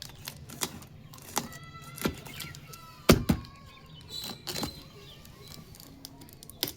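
Small plastic toy kitchen pieces clicking and knocking against each other as they are handled, with a brief squeak of plastic rubbing and one louder knock about three seconds in.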